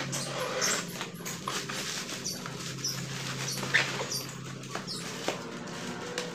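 Plastic curtain packaging being handled and opened: crackling and rustling with scattered short high squeaks over a steady low hum.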